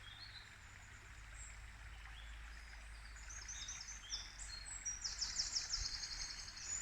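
Songbirds singing over a stream babbling over rocks. The birdsong grows busier about halfway through, becoming a fast, repeated trilling song near the end.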